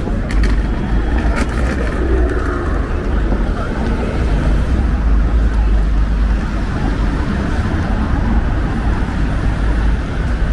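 Street traffic noise: a steady, loud rumble of passing vehicles with a deep low end, and a few brief clicks in the first couple of seconds.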